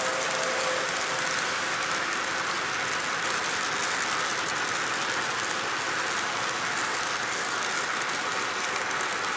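Model railroad freight cars rolling past on the track, a steady even rushing of wheels on rail. A steady two-note tone fades out in the first second.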